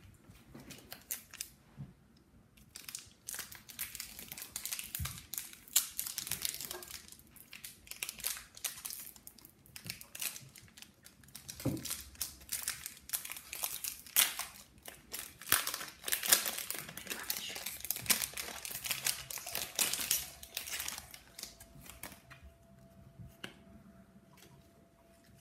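Foil trading-card pack wrapper being torn open and crinkled by hand: a long run of quick crackling rustles that dies down a few seconds before the end.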